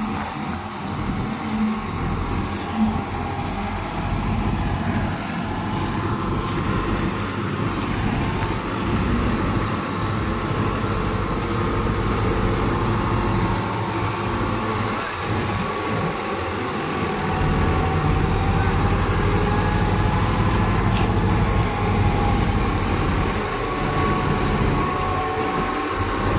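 A New Holland 3630 tractor's diesel engine runs steadily under load. It is driving a tractor-drawn straw reaper, and the reaper's machinery is running along with it.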